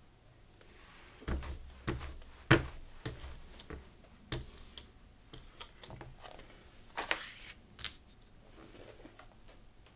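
A string of sharp clicks and knocks, with a brief rustle or two, from printmaking tools being handled on a gel plate and its acrylic base: palette knife, brayer and paper.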